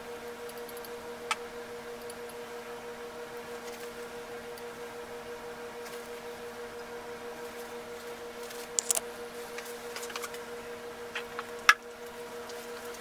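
A steady hum with a few short, sharp clicks scattered through it, the loudest a little before the end.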